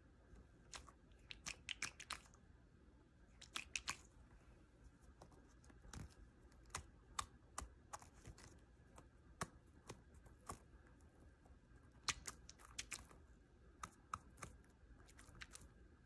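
Small plastic toy figures being handled, giving short, light clicks and taps against each other and the cardboard box, in scattered clusters with quiet gaps between.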